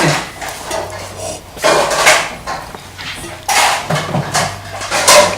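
Spoon scraping and clinking on a plate of curry and rice, four short strokes, over a low steady hum.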